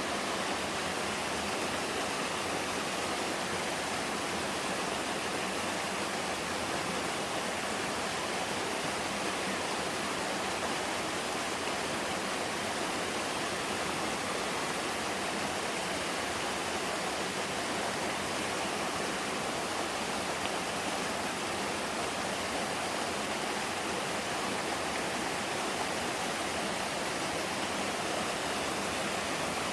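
Mountain waterfall: water from a twin fall pouring steadily into a valley stream, an even unbroken rush.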